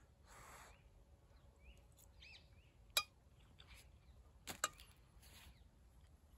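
A metal fork clinking against a small metal cooking pot, twice, about three seconds in and again a second and a half later, with faint bird chirps.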